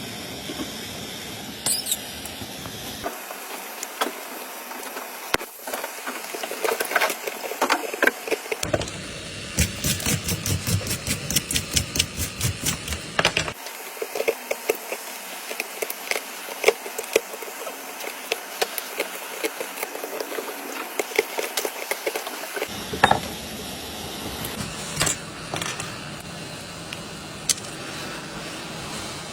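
Small clicks and taps of hand tools working on a phone, over a steady background hiss, with a run of rapid clicking about a third of the way through.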